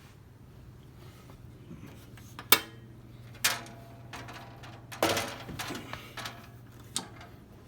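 Knocks and clatter of a loose plastic box-fan grill being handled against the fan's cabinet: four separate knocks, the sharpest about two and a half seconds in, and a rattling knock that rings on briefly about five seconds in.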